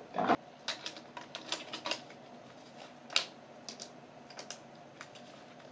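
Light plastic clicks and clacks of handling as a 2CR5 battery is fetched from a plastic storage box and fitted into a Canon EOS Elan IIE film camera. The clicks are irregular and spread out, with the sharpest one just after the start and another about three seconds in.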